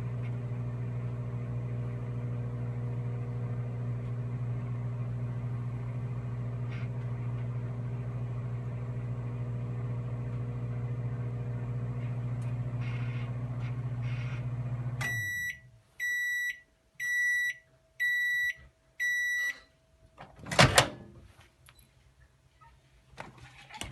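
Microwave oven running with a steady electrical hum, which cuts off about 15 seconds in. Five evenly spaced high beeps follow, signalling that the cooking is done, and then a sharp clunk of the door being opened.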